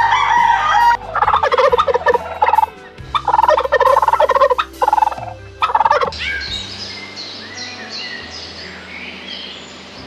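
Turkey toms gobbling, several loud rattling gobbles in quick succession over the first six seconds. After that, fainter high bird chirps.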